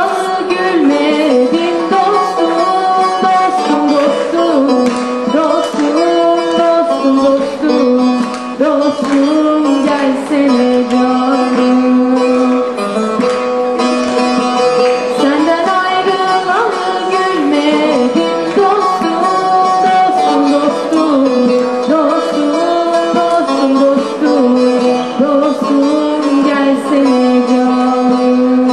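Instrumental passage of a Turkish folk song: a plucked string instrument playing a quick, ornamented melody, with many rapid notes, over steady accompaniment.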